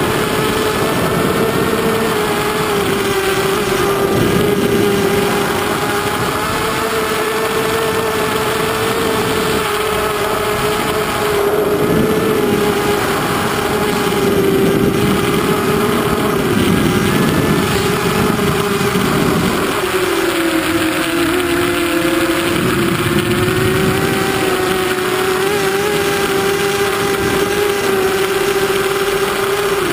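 Hexacopter's electric motors and propellers whining steadily, heard from the camera mounted on the craft, with wind rushing over it. The pitch dips for a couple of seconds about twenty seconds in.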